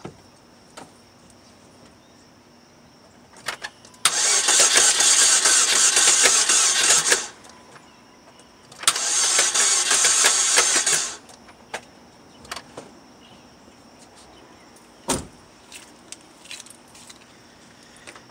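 A 2007 Saturn Vue's engine being cranked by the starter twice, for about three seconds and then about two, without catching: it cranks but does not start. A few light clicks come before the first crank, and a single sharp knock follows a few seconds after the second.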